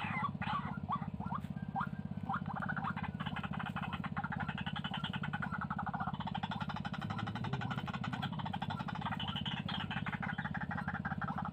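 White-breasted waterhens calling: a continuous, rapidly pulsed croaking chatter.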